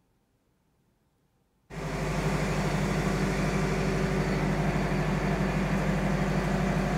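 Near silence, then, under two seconds in, the steady running of the yacht's 55 kW diesel generator cuts in suddenly in the engine room: a loud, unchanging mechanical hum with a strong low drone and a haze of noise above it.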